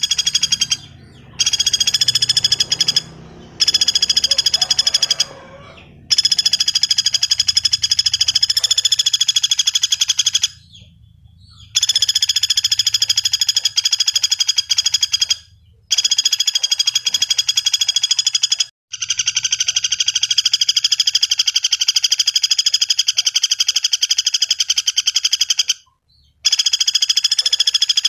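Sunda pygmy woodpecker (pelatuk bawang) calling in long runs of rapid, high, rattling trill notes. Each run lasts a few seconds, with short breaks between runs.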